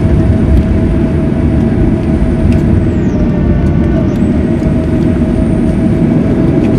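Steady low rumble of a Boeing 737-900ER's CFM56 engines and rolling gear, heard from inside the passenger cabin as the jet moves on the ground after landing, with a steady hum running through it.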